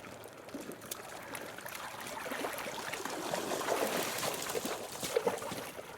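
Water splashing and trickling, building up in the middle and easing off near the end.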